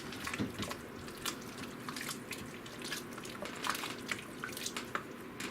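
Spoon stirring a thick pot of beer chili in an Instant Pot's inner pot: wet squelching and plopping with irregular light clicks of the spoon against the pot.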